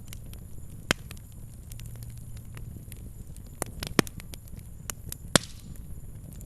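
Wood fire crackling: sharp irregular pops and snaps over a low rumble of the flames, with the loudest pops about a second in, at four seconds and near five and a half seconds.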